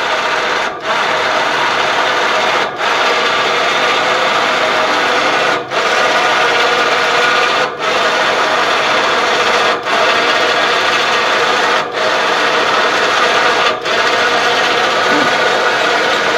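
Battery-powered motor driving the antennavator cart, running steadily with a light whine as it raises the antenna up the tower. Its sound dips briefly about every two seconds.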